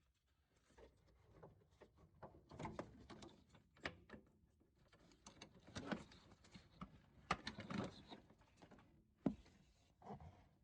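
Faint, irregular clicks and knocks, with one sharper knock near the end.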